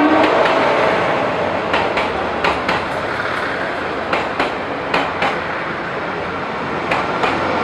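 Taiwan Railway Tze-Chiang express diesel multiple unit arriving and rolling past the platform: a steady rumble with sharp wheel knocks over the rail joints, mostly in pairs, every second or two.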